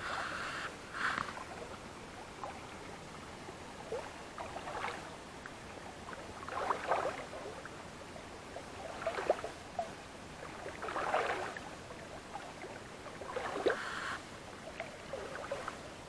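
Water sloshing and splashing around a float tube in slow strokes, about one every two seconds, as it is moved along through calm water.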